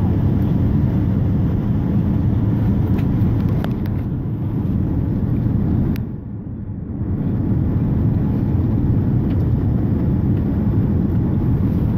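Cabin noise inside a Boeing 787-9 on its landing approach: a steady, low rumble of engines and airflow. It dips briefly for about a second around halfway through.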